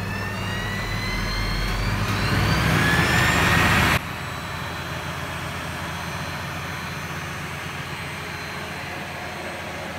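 Boxford lathe's motor and pulleys running on a newly fitted T-link belt. A whine rises steadily in pitch and grows louder for about four seconds, then cuts off abruptly, leaving a steady running noise.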